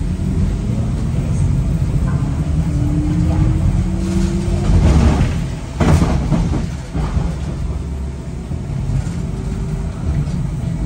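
W8-class tram running along its rails, heard from inside the car: a steady low rumble with the motor whine rising in pitch as it picks up speed, and a loud clunk about six seconds in.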